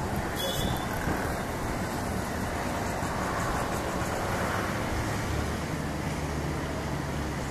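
Steady low rumble of vehicle engines, with a brief high chirp about half a second in.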